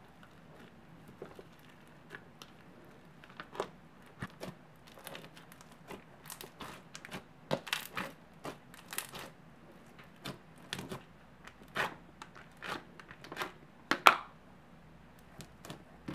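Glossy slime packed with big and small floam beads being pressed, stretched and squished by hand: irregular crunchy crackles and pops, sparse at first and densest in the middle, with the loudest pop about fourteen seconds in.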